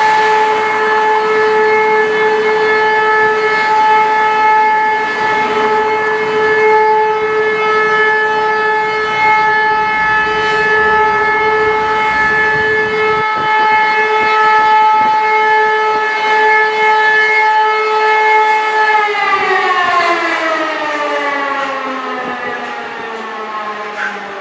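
Civil-defence warning siren sounding one steady, unbroken tone, the pattern of the German all-clear signal in the test. About 19 seconds in, it winds down, its pitch falling gradually as it switches off.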